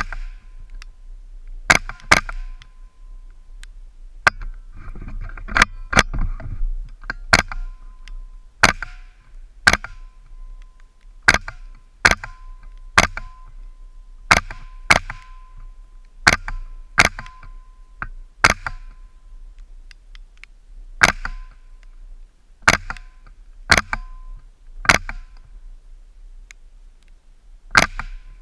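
Ruger 10/22 semi-automatic rifle firing .22 Long Rifle rounds: about twenty sharp, short cracks at roughly one shot a second, with a longer pause in the middle and a brief ring after each.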